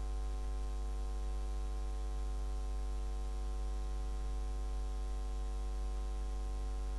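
Steady electrical mains hum, a low buzz with a ladder of evenly spaced overtones, unchanging throughout with no other sound.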